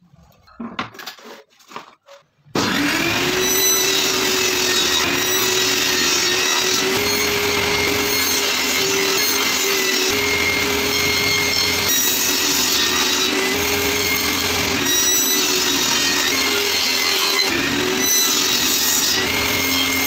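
Table saw switched on about two and a half seconds in, spinning up quickly, then running steadily while a board is fed across the blade and cut. Its pitch dips briefly a few times as it cuts.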